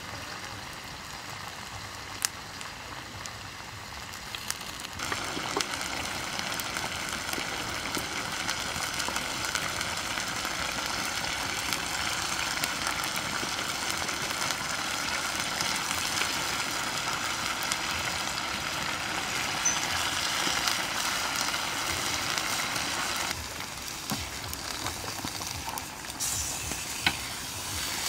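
Crocodile meat with peppers and onions sizzling in a wok over an open wood fire, with a few sharp crackles. The sizzling grows louder about five seconds in, and near the end a spatula stirs the food.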